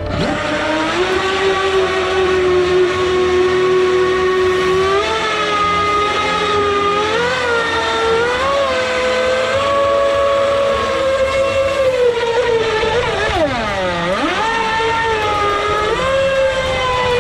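Brushless electric motor of an FTX radio-controlled boat whining, its pitch rising and falling with the throttle. About 13 seconds in the pitch drops sharply and then climbs back up.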